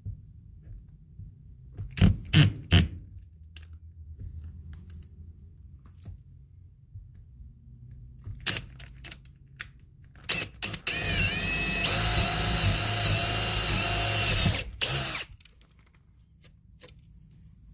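Power drill boring new mounting holes for an air hose reel: a few knocks and clicks, then the drill runs steadily for about five seconds, its pitch dipping briefly as it bites, before stopping.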